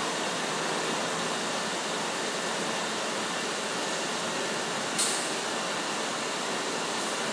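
Steady machinery noise from a factory floor lined with industrial machines running, with one sharp click about five seconds in.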